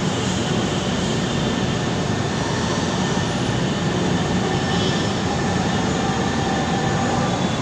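LRT Line 1 3G light rail train (LRV 1220-1217) running along the station platform: a steady rumble of wheels on rail, with faint thin tones above it.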